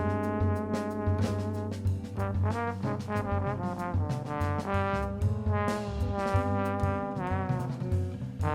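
Instrumental jazz-style music: a horn melody with vibrato on held notes over a bass line and drums.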